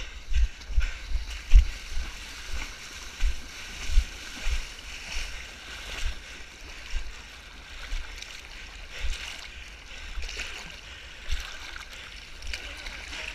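Footfalls of people running on a muddy path, heard as dull thumps about two a second, then wading and splashing through waist-deep lake water from about halfway in.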